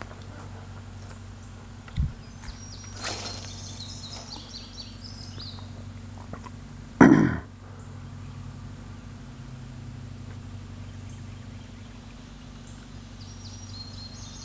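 Outdoor ambience with a steady low hum and birds chirping in short high notes, a low thump about two seconds in, and a louder short noise about halfway through.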